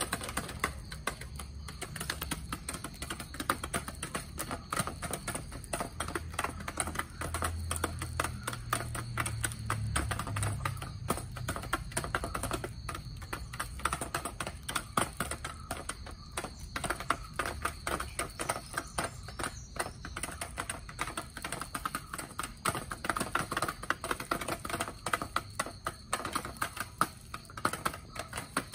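Chickens pecking feed from a shallow feeder dish, their beaks tapping against it in a rapid, irregular run of clicks.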